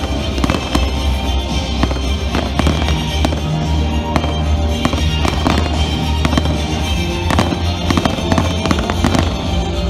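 Aerial fireworks shells bursting and crackling, many sharp bangs in quick, irregular succession, with music playing underneath.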